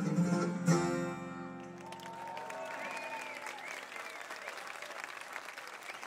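A bluegrass band's acoustic strings playing the last bars of a song, closing on a loud final chord about a second in that rings out briefly. An audience then applauds and cheers.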